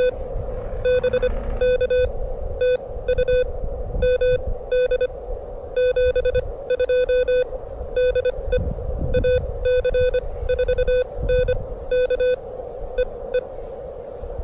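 Morse code from an amateur radio transceiver: a single steady beep keyed on and off in quick dots and dashes at about 25 words per minute. Wind rumbles on the microphone underneath.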